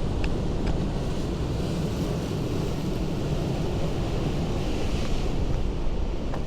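Ocean surf washing against a rocky shore: a steady rush with a swell of spray about five seconds in, over a low rumble of wind on the microphone.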